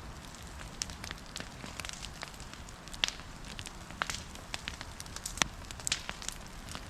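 Wood fire crackling, with irregular sharp pops and snaps over a steady low rush.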